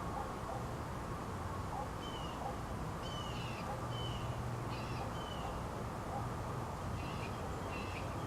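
Bird calls: a scattered series of short, slightly falling chirps, about ten in all, some in quick pairs, over a steady low background hum.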